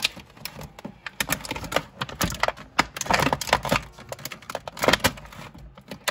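Clear plastic blister tray crackling and clicking as an action figure is worked loose from it by hand: irregular sharp clicks and crinkles.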